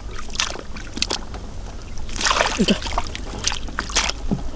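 Shallow water splashing and sloshing in irregular bursts, the biggest splash about two seconds in, over a steady low rumble.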